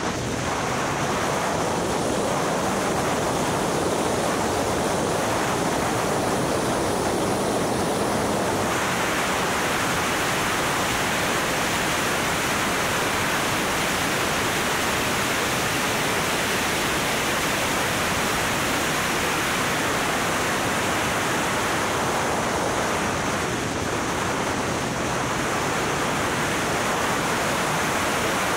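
Steady rush of wind and road noise over the microphone of a camera riding on a car lapping a race track at speed, with no clear engine note standing out. The hiss grows brighter about eight seconds in.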